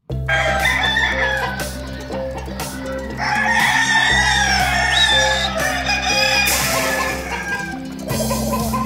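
Roosters crowing repeatedly with some clucking, over background music of held notes that change pitch every second or so.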